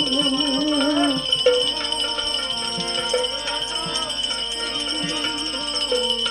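Instrumental interlude in a Gujarati devotional bhajan. A wavering held note fades about a second in, then steady sustained melody notes play over jingling percussion that keeps the beat.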